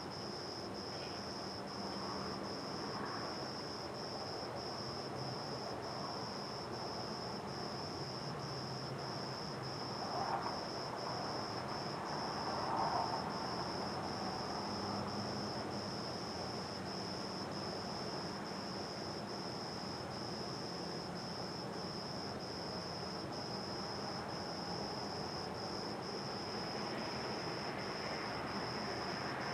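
A cricket chirping on and on in an even, high-pitched pulse, over a faint night-time background hiss.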